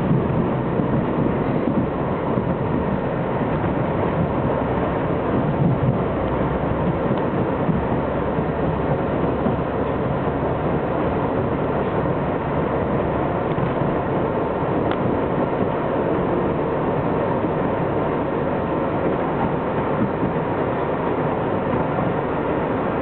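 New York City Subway 7 train of R62A cars running up the ramp and onto the elevated structure. Heard from inside the front car, its wheels on the rails and its running gear make a steady running noise.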